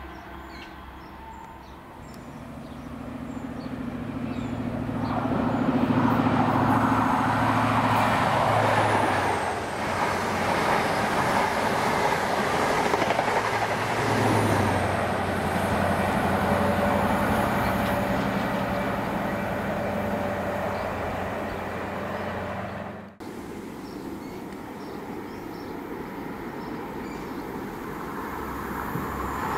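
A diesel passenger train passing, its engine note and wheel noise building over a few seconds and staying loud for around fifteen seconds. The sound cuts off abruptly about three-quarters of the way through, and a quieter train sound follows and grows louder near the end.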